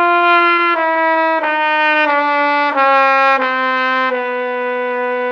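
Cornet played as a descending series of notes, stepping lower about every two-thirds of a second. Each added valve lengthens the tubing and lowers the pitch. The last and lowest note is held steady.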